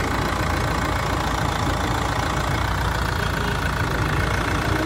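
Chevrolet Cruze 2.0 turbo-diesel engine idling steadily.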